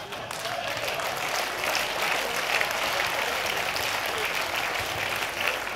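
Theatre audience clapping steadily, applause in response to a comedian's joke.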